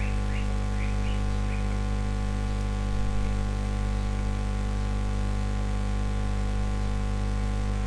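Steady electrical mains hum with a layer of hiss from the recording setup, with a few faint clicks in the first second and a half.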